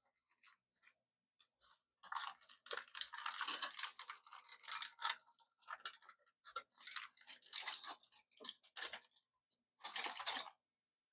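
A cured silicone inlay being pulled and peeled free of its tin-foil form: irregular crinkling and crackling in bursts, heaviest through the middle and again near the end.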